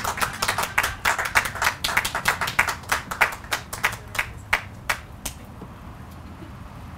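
A small group of people clapping by hand, the individual claps distinct, thinning out and stopping about five seconds in.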